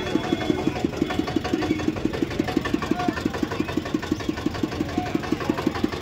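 Small vehicle engine idling, a steady even chug of about six or seven beats a second.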